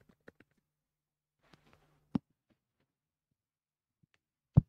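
A quiet pause with a single sharp click about two seconds in, then two loud thumps in quick succession near the end: handling noise from a handheld microphone being picked up.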